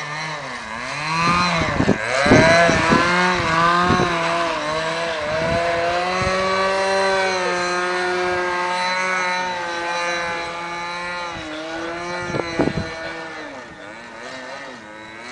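Force .46 two-stroke glow engine of a radio-controlled Yak 54 model plane in flight. Its pitch wavers and swings up and down as the plane manoeuvres and passes, holds steady for a long stretch in the middle, and swoops once more about twelve seconds in. It grows fainter near the end.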